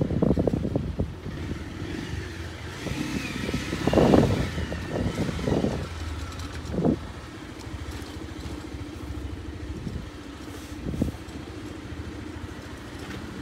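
Motor scooter engine running as it is ridden along a road, with a steady low hum and road and wind noise. A few louder irregular bursts come in the first half, the loudest about four seconds in.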